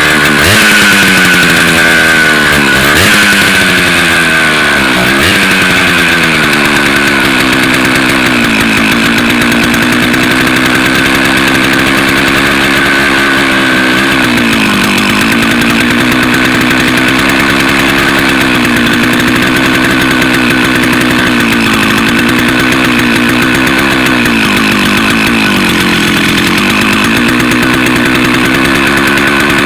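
Vintage Stihl 051 AV two-stroke chainsaw engine running, with a few rev swoops in the first six seconds, then near idle with its speed sagging and picking up again every two to three seconds. The owner takes the running to be lean, with the low-speed jet a little behind and a carb clean due.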